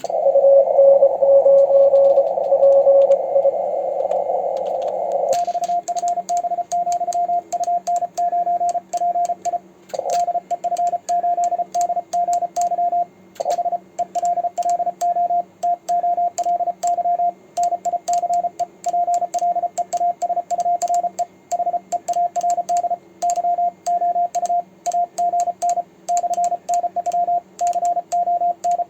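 Morse code at about 33 words per minute on a ham radio: for the first five seconds or so a received signal, a lower tone in band hiss, then a single sidetone keyed in quick dits and dahs by a homemade 3D-printed paddle, with faint contact clicks in step with the keying.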